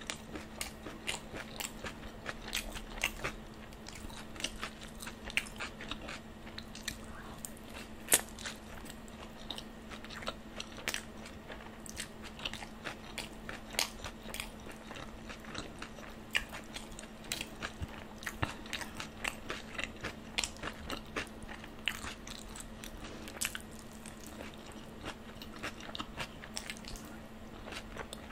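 Close-miked chewing of a mouthful of veg roll: wet chews, lip smacks and many short crisp mouth clicks at a steady, uneven pace, one louder click about 8 s in. A steady low hum runs underneath.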